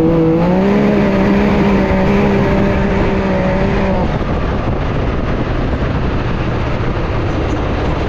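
Can-Am Maverick X3's turbocharged three-cylinder engine under power, heard from inside the cab: its note climbs about half a second in, then holds steady. After about four seconds the engine note fades and an even rushing noise of tyres on the dirt track and wind takes over.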